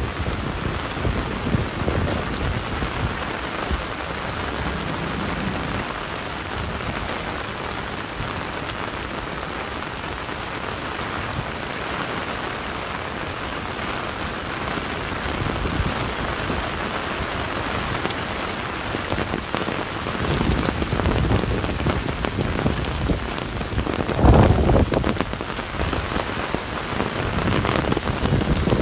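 Steady rain falling and pattering on surfaces, with low rumbles coming and going and a louder one about twenty-four seconds in.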